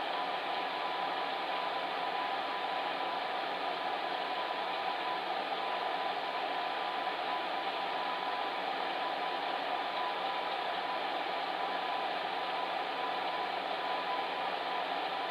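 Electric fan heater running steadily: an even blowing rush with a faint steady hum in it.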